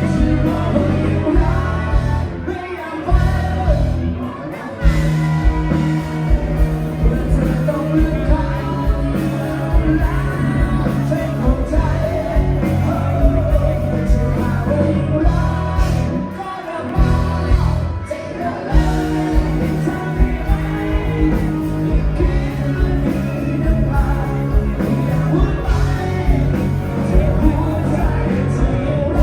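Live band with a singer performing a rock song, with a steady drum beat and bass; the music thins briefly about 3 seconds in and again about 17 seconds in.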